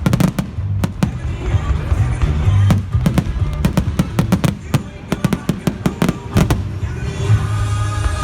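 Rapid volleys of firework bangs and crackles over loud show music with a heavy bass. The bangs thin out after about six and a half seconds, leaving mainly the music.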